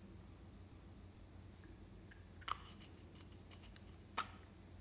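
Faint small clicks and taps of a glass nail polish bottle and its plastic brush cap, a short cluster about halfway through and one sharper click near the end.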